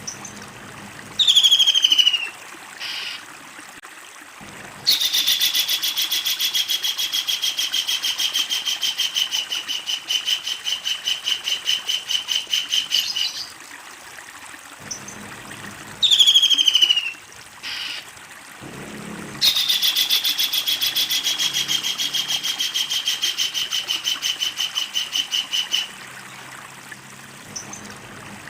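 Kingfisher calling: a single falling note, then a long, rapid run of repeated notes lasting several seconds, with the whole sequence repeated twice.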